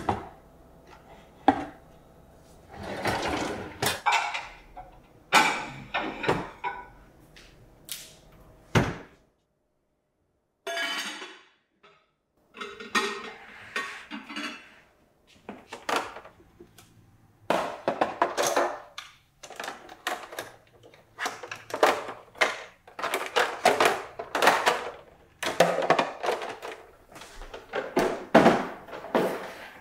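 Kitchenware being handled: stainless steel pots with lids set into a wooden pull-out drawer, then ceramic baking dishes and a storage bin moved on cabinet shelves. A run of thunks, clinks and short scrapes, with a brief silence about nine seconds in.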